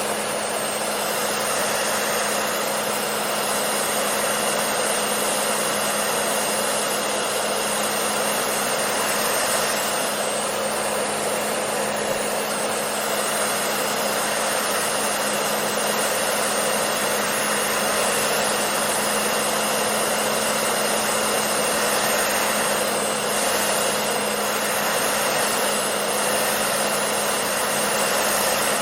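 Hair dryer running steadily: an even rush of blown air over a constant motor hum, unchanging throughout.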